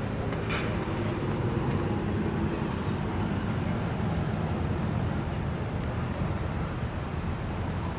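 City street traffic: a steady wash of passing vehicles, with a low engine hum.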